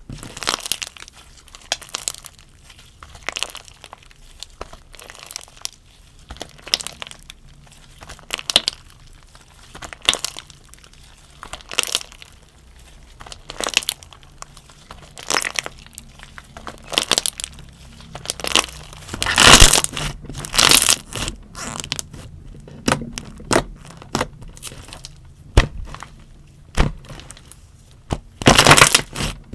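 Slime being squeezed, stretched and pressed by hand, giving irregular crackles, pops and crunches, with a denser, louder run of crackling about two-thirds of the way through and again near the end.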